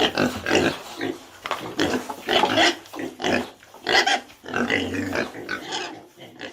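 Pigs grunting in a quick, irregular run of short calls, fading out near the end.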